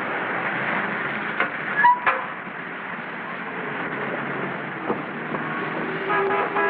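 Steady street-traffic noise, with a few sharp clicks about two seconds in and a car horn sounding near the end.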